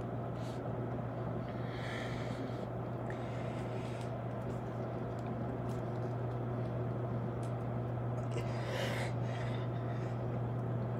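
A steady low hum throughout, with a person breathing out hard twice, about seven seconds apart, from the effort of doing push-ups.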